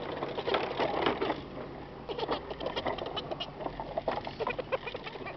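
A baby giggling in short, rapid bursts of laughter.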